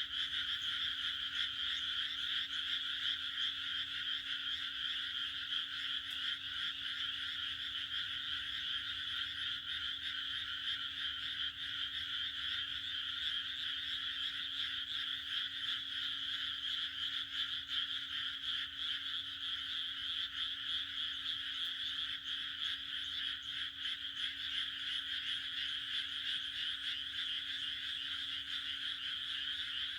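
A dense chorus of many frogs croaking at once, a continuous high-pitched rattling trill that holds steady throughout.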